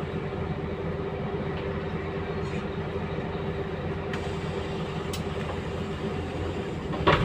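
Scania K320UB city bus running, heard from inside the passenger cabin: a steady low engine and drivetrain hum with a faint steady tone over it. A single sharp knock sounds near the end.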